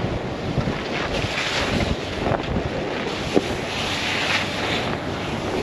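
Wind buffeting the microphone of a camera mounted on the outside of a moving Bronco, over a steady low rumble of the vehicle. The tyres swish through wet snow and slush, swelling louder twice.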